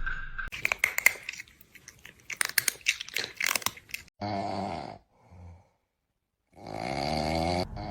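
A rapid run of crunching clicks, then two wavering, drawn-out growl-like vocal sounds about two seconds apart.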